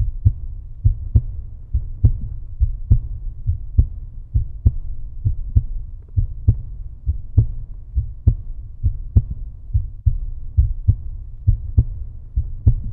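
Bass-heavy background music with a steady thudding beat, about one strong thud a second and softer pulses between.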